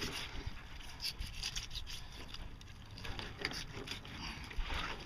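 Knife sawing through a buffalo fish's scaled skin and flesh: irregular rasping strokes with a few small knocks.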